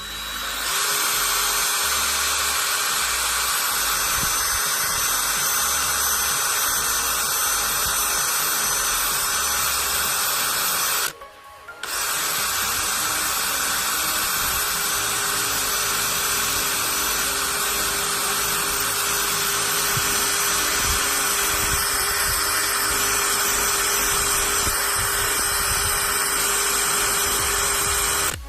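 18-volt power drill running continuously as it bores into an iPhone's screen and body. It stops for about a second near the middle, starts again, and cuts off at the end.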